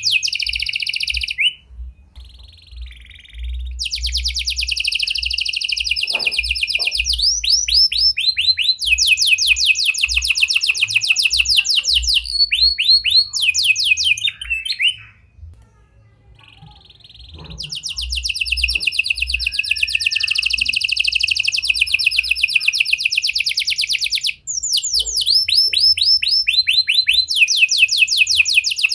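Red canary singing: long phrases of rapid, repeated high notes, each phrase a fast trill, with two short breaks, one about two seconds in and one about halfway through. The song carries phrases copied from the prinia (prenjak) and the lovebird.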